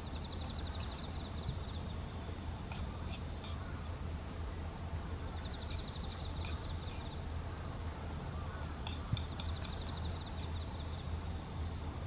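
Crows giving occasional short caws over a steady low rumble. A high, rapid pulsing trill comes three times, each lasting about a second and a half.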